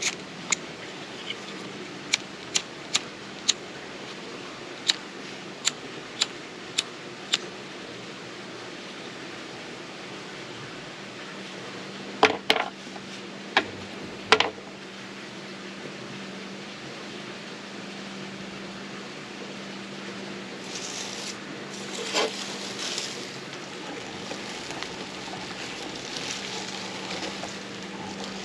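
Flint wheel of an empty Bic lighter being flicked over and over to throw sparks onto char cloth: a run of about a dozen sharp clicks in the first seven seconds or so, then a few louder clicks around the middle. Near the end comes a stretch of soft hissing, over a steady low hum.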